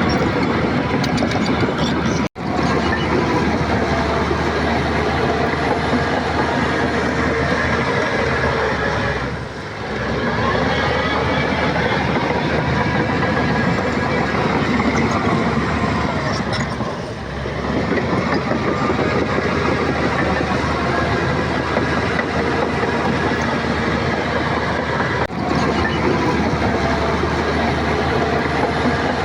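Shantui crawler bulldozer working: diesel engine running under load with the continuous clatter of its steel tracks. The sound drops out for an instant a couple of seconds in, and the engine eases off briefly twice, about ten and seventeen seconds in.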